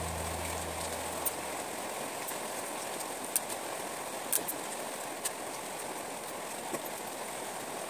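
Steady hiss of rain falling, with a few sharp clicks scattered through it.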